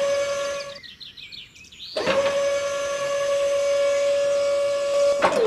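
Small electric motor of a DIY toy tractor spinning up with a quick rising whine and settling into a steady high hum. It cuts off just under a second in, then spins up again about two seconds in and runs on. Birds chirp in the gap.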